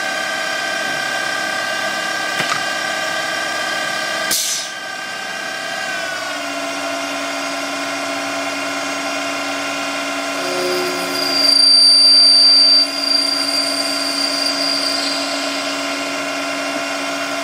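CNC lathe with servo drives running, giving a steady whine with many overtones. A sharp click comes about four seconds in, and the whine drops slightly in pitch a couple of seconds later. From about ten seconds a louder high-pitched squeal of tool on brass rises over it, loudest around twelve seconds, as the brass part is worked and parted off.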